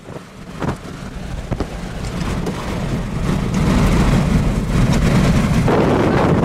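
Strong storm wind buffeting the microphone in a low rumble. It builds over the first few seconds and then stays loud, with a few sharp knocks early on.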